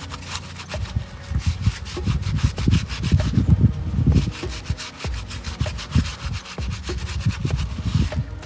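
Cloth rubbing the charred skin and ash off an ember-roasted potato, in quick, irregular scrubbing strokes with many small clicks.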